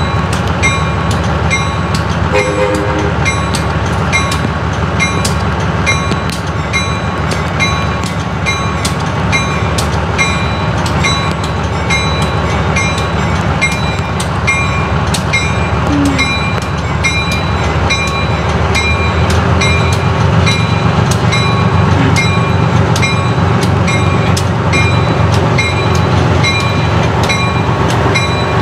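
Small diesel switcher locomotive running as it creeps toward the listener, its engine growing louder in the second half. Its bell rings steadily throughout, about one and a half strokes a second, with a brief low horn note about two seconds in.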